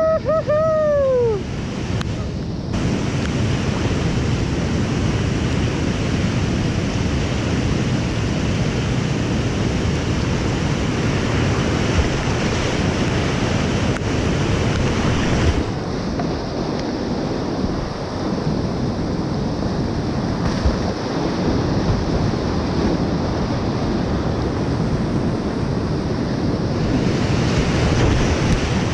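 Whitewater rapids of a creek in high flood, rushing loudly and steadily close around a kayak running them. A brief two-note pitched sound at the very start. The rushing turns duller for about ten seconds midway.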